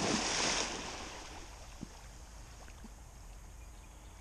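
Splash and falling spray from a Labrador retriever leaping into a pond, dying away within about the first second. Then only faint water sounds as the dog swims off.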